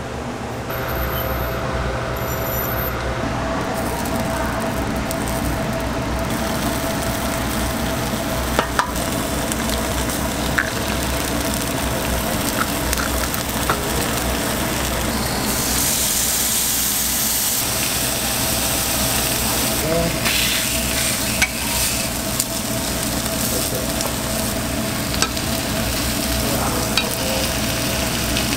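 Egg and bacon frying on a flat-top griddle: steady sizzling that grows louder for a couple of seconds about halfway through, over a steady hum, with a few light clicks.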